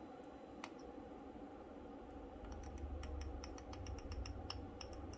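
Faint, irregular small clicks and scratches that come more often after about two and a half seconds, over a low rumble. This is a tool turning the modulation adjustment trimmer inside a Cobra 29 LTD Classic CB radio, backing it off from clipped over-modulation.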